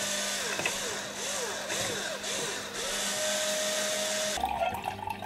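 Electric wine opener's motor whirring as it draws the cork, its pitch rising and falling and then holding steady before it cuts off about four seconds in. Wine then glugs from the bottle into a glass.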